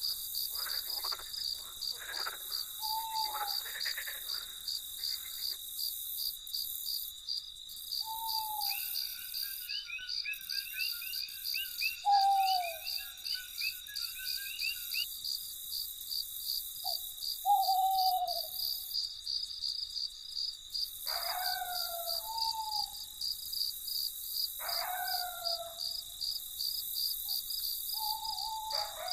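Night chorus of crickets chirping in a steady fast pulse, with frogs croaking in the first few seconds. A rapid trill runs for several seconds near the middle, and a short falling call note repeats every three to four seconds.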